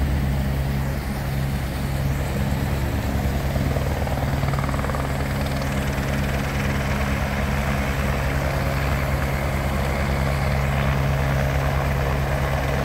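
Helicopter in flight nearby, its rotor blades beating in a fast, steady pulse over a low engine drone.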